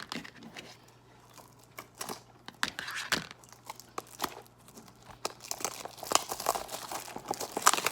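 Crinkling and tearing of a toy blind-box package being worked open by hand, irregular crackles that grow denser in the last few seconds.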